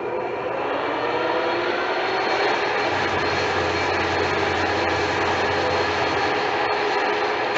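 A Clausing-Colchester 17 x 80 gap bed engine lathe with its spindle running at about 660 rpm: a steady whine from the headstock gearing that rises slightly as the spindle comes up to speed, then holds, until it is switched off near the end.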